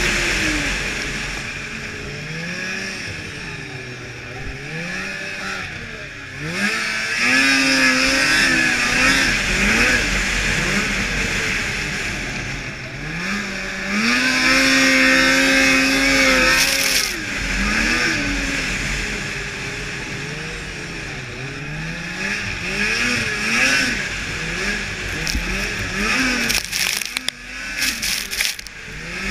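A 2002 Blade Striker 600 racing snowmobile's two-stroke engine at high revs, its pitch falling and climbing again many times as the throttle is eased and reopened, with a steady rush of wind. Near the end the sound dips and breaks into a few short choppy crackles.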